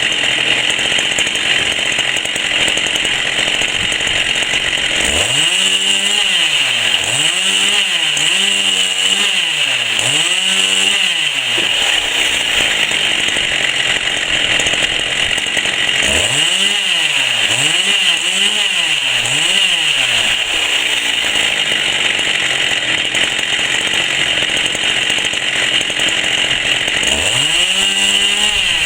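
Two-stroke chainsaw running hard without a break. In three stretches its tone wavers up and down about once a second.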